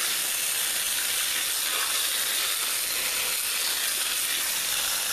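Water spraying from a hose onto soaked clay in a wheelbarrow: a steady hiss.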